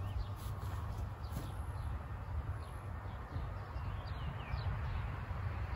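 Birds chirping now and then, short falling chirps, over a steady low rumble.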